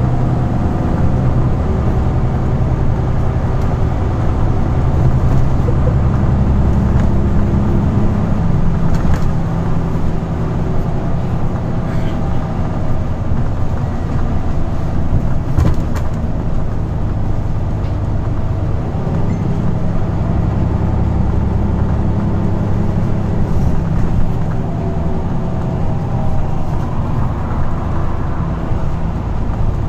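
Scania N94UB bus's diesel engine and driveline heard from inside the saloon, running under way with a steady low drone. Its pitch slides down and up as the bus changes speed, and a whine rises near the end as it pulls away.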